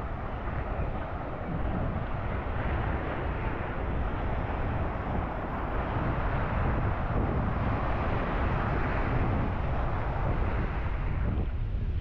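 Waves washing up on a sandy beach, a hiss that builds over several seconds and falls away near the end, with wind buffeting the microphone as a steady low rumble.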